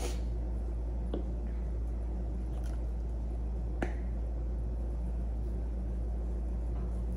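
Plastic spice shakers being handled and shaken while seasoning: three light, sharp clicks, the sharpest a little under four seconds in, over a steady low hum.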